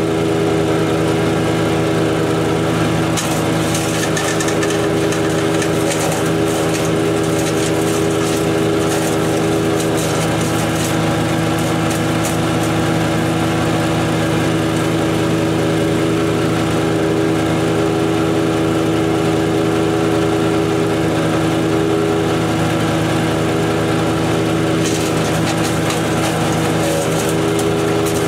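DK2 Power OPC506 wood chipper's Kohler engine running at a steady speed while a 3/4-inch dead cedar branch is fed in and chipped. Crackling of the wood being cut starts about three seconds in and lasts about eight seconds, then comes again for a few seconds near the end; the engine pitch does not drop under the load.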